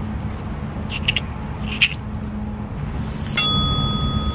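A single bright, bell-like ding about three seconds in, loud and sudden, ringing on in several clear tones for over a second. Before it, a few short crackles of plastic bubble wrap being handled over a low steady background hum.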